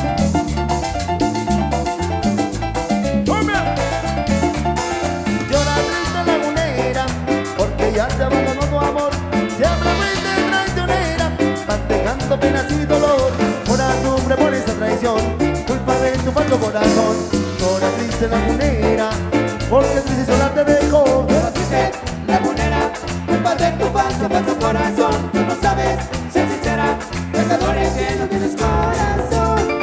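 A cumbia band playing live: an instrumental stretch with a steady, even beat under melody lines and no singing.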